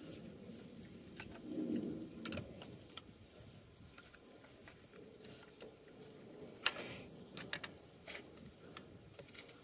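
Scattered light metallic clicks and knocks as an alternator is worked and pried out of its tight mounting bracket, with a sharper knock about seven seconds in and a few quick clicks just after.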